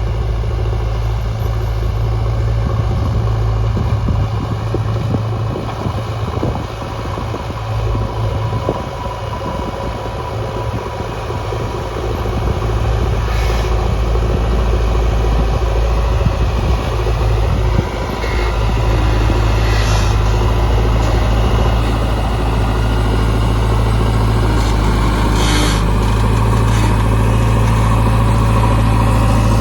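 JCB 3DX backhoe loader's diesel engine running steadily at working revs, with a few sharp knocks several seconds apart.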